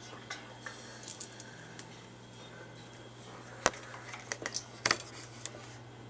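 Scattered light clicks and taps over a steady low hum, with one sharp click about three and a half seconds in and a quick run of clicks just before five seconds.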